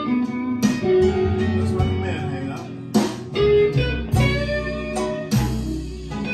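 Instrumental blues guitar music with a bass line, with no singing, played back through Chario Hiper 2000 hi-fi loudspeakers driven by an Arcam SA30 amplifier. Plucked guitar notes ring out, with strong attacks about half a second, three seconds and five seconds in.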